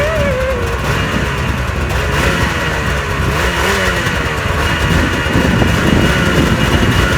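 Snowmobile engine running just after a pull start, the throttle blipped so its pitch rises and falls repeatedly.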